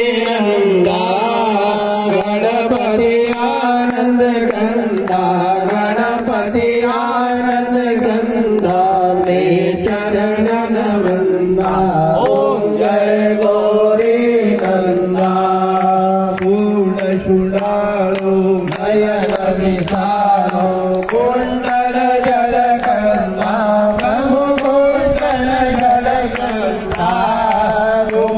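Hindi devotional singing of an aarti to Ganesh with instrumental accompaniment: a sung melody over a sustained drone, kept in time by a steady beat of sharp strokes.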